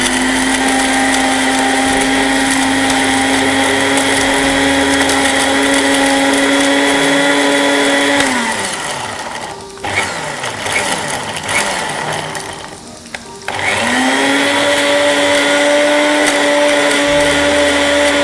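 Anex electric grinder's motor whining steadily as it coarsely grinds green chillies, garlic, ginger and whole spices in its small jar. About eight seconds in it winds down and stops; after a pause of a few seconds it starts again and rises back to the same steady whine.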